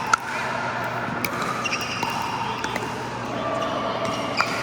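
Pickleball play: scattered sharp pops of paddles hitting the plastic ball and the ball bouncing on the court, the loudest just after the start, over a steady background of court noise.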